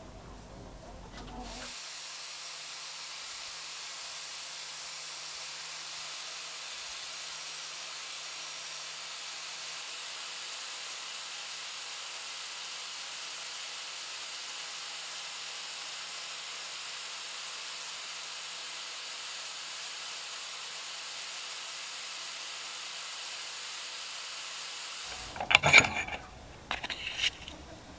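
Small motor-driven sanding disc spinning with a steady hiss as the edge of a lure template is ground against it. Near the end a few sharp knocks come from a metal bench vise.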